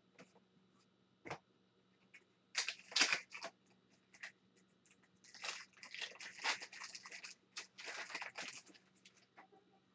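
Foil wrapper of a hockey card pack being torn open and crinkled: a short burst of crackly tearing about two and a half seconds in, then a longer spell of crinkling from about five to eight and a half seconds.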